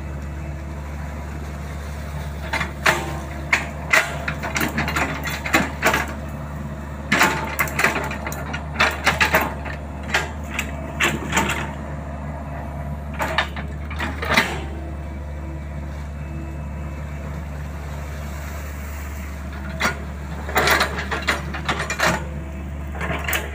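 Crawler excavator's diesel engine running steadily under load, with clusters of irregular knocks and clanks from the working arm and bucket as it digs and places wet peat mud.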